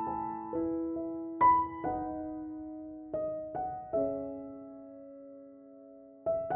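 Slow, gentle solo piano background music: single notes and soft chords struck one at a time and left to ring, with a long held note fading before a new chord near the end.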